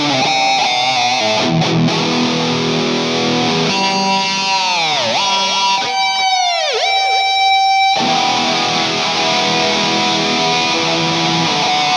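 Ibanez RG350 electric guitar played through a NUX MG100 multi-effects unit straight into a sound card, with no amp. It plays a lead line, and twice in the middle the tremolo arm dives the notes' pitch down steeply and lets them spring back up.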